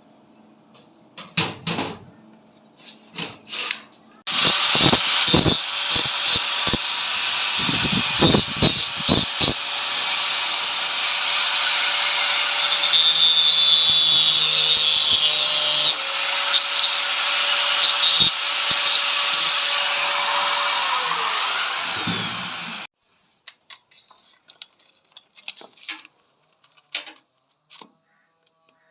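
Electric power tool running steadily at high speed for about eighteen seconds, with a few sharp knocks early on from the work, then its motor pitch falling as it winds down and stops. A few light clicks and knocks of handling come before and after.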